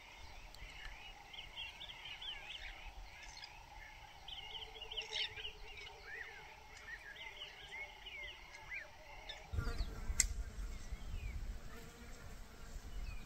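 Many wild birds calling at once, starlings among them: a busy tangle of short, high chirps and whistles. About ten seconds in, a low rumbling noise comes in and the birdsong thins.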